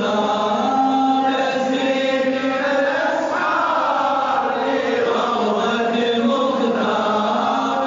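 Arabic devotional praise song (madih) chanted by a male voice in long, slowly bending held notes.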